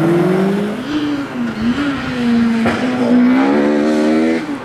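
Race car engine at full throttle on a hillclimb. The pitch climbs, dips briefly about a second in, holds, then climbs again and drops sharply near the end as it shifts gear.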